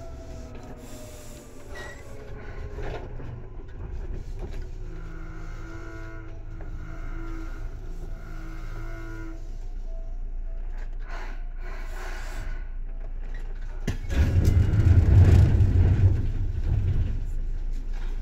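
Cabin running sound of a Seibu 2000 series electric train: the traction motor whine falls in pitch as the train slows, with steady tones coming and going over the rolling noise. About 14 seconds in, a louder low rumble swells and fades over about three seconds.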